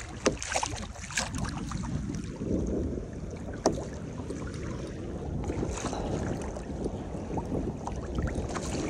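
Wind buffeting the microphone over choppy water lapping against a kayak hull, with a few brief sharp knocks or splashes.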